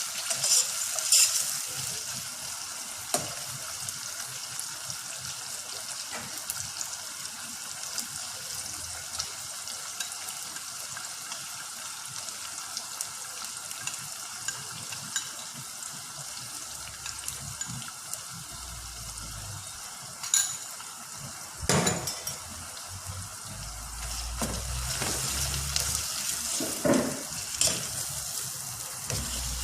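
Chicken kurma sizzling steadily in a pan, with a utensil knocking against the pan a few times as it is stirred.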